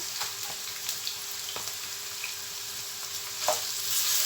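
Onion, garlic paste and whole spices sizzling in hot oil in a pan, with a few clicks of a spoon stirring against the pan. The sizzle grows louder near the end.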